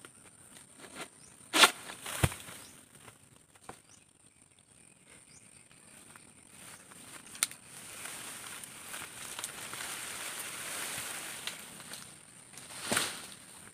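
Sharp knocks about two seconds in, the second with a heavy thud, then a rustling swell in the second half and another loud rustle or thud near the end. Under it all runs a steady high-pitched insect drone.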